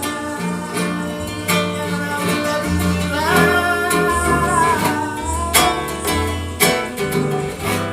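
Trova song played by an acoustic ensemble: plucked and strummed acoustic guitars over a bass line, with a melodic line carrying the tune in a passage without lyrics.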